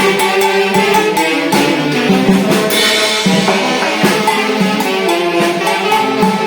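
A tunantada played by a band-orchestra: wind instruments carry the melody over steady drum and percussion beats, with a cymbal crash near the middle.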